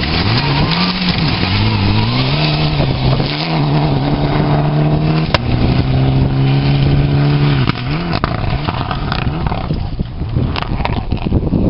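Rally car engine at full throttle on a gravel stage. Its pitch climbs and drops back twice through upshifts, holds high for a few seconds, then falls away about eight seconds in as the car lifts off and the sound fades.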